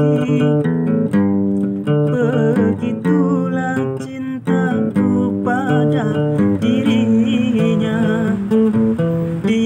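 Steel-string acoustic guitar strummed, with chords changing in a steady rhythm.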